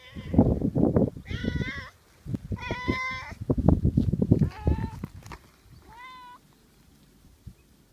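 A tabby cat meowing about five times in short, coaxing calls, asking to be stroked more. Through the first five seconds, close-up rustling and bumping sounds come from very near the microphone.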